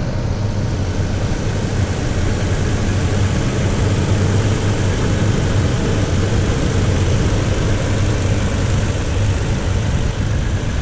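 A 2018 Toyota Tacoma's engine idling steadily, close by, with an even low rumble.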